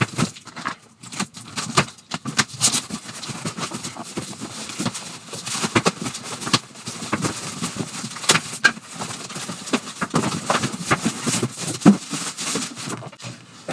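Cardboard box being opened and a computer case pulled out of it: crinkling and scraping of cardboard and packing material, broken up by irregular knocks and clatters, one sharp knock louder than the rest near the end.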